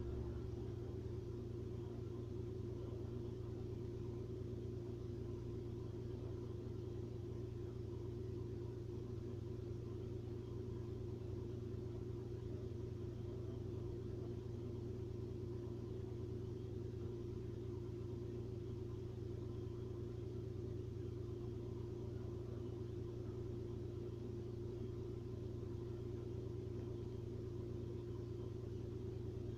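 Steady low rumble with a constant hum, unchanging throughout, with no distinct gurgles or other events.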